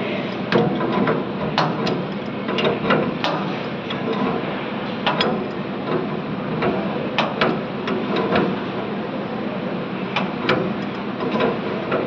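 A string of irregular sharp metallic clicks and clinks as an adjustable wrench works the brass flare nut on the copper refrigerant line at the window AC's service valve. It plays over a steady background hiss.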